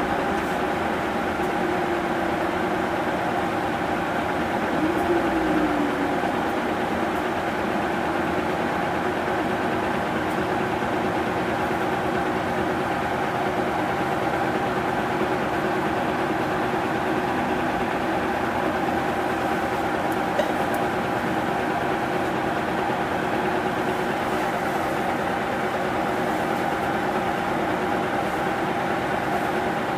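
Mitsubishi Fuso 2PG-MP38FK city bus's diesel engine idling at a steady pitch, heard from inside the passenger cabin, with a brief swell and short pitch glide about five seconds in.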